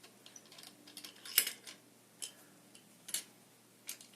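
A handful of separate metallic clicks as a hex key turns and loosens the height-adjustment screw on a bicycle kickstand; the loudest click comes about a second and a half in.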